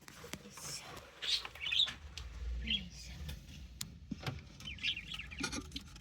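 Budgerigar giving a few short, high chirps, with some sharp clicks in between.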